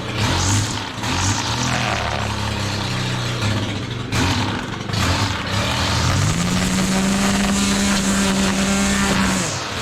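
Small gasoline engine on a power tool running unevenly, its pitch surging up and down, then rising about six seconds in to a steady higher speed before dropping away near the end. It is struggling: it hadn't been started in a while and didn't want to run on its side.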